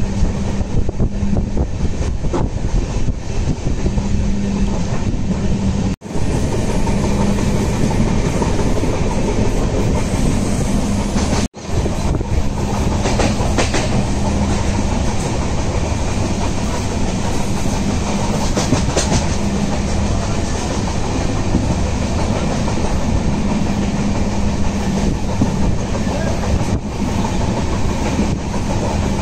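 Mandavi Express passenger train running on the track, heard from on board: a loud, steady running noise of wheels on rail with a steady low hum. The sound drops out for an instant twice.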